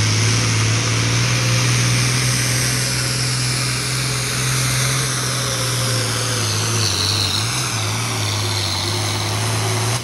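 Diesel pulling tractor running at full throttle while dragging a weight-transfer sled: a loud, steady engine drone that wavers briefly about seven seconds in and drops off at the very end as the pull finishes.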